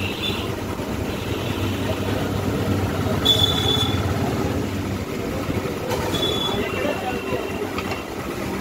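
Steady background din with indistinct voices, broken twice by a brief high-pitched squeak.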